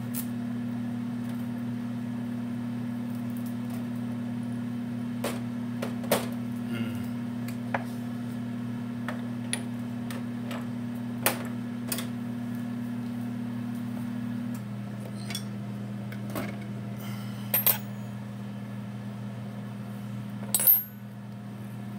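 GE over-the-range microwave oven running at power level 5, a steady electrical hum; the hum thins slightly about two-thirds of the way through. Scattered light clicks and clinks of kitchen items being handled on the counter, the loudest a clatter near the end.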